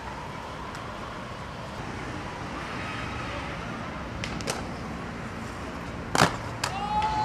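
Skateboard on a concrete ledge: a couple of light clacks about four and a half seconds in, then a loud sharp clack of the board coming down about six seconds in, and another just after, over steady city traffic noise.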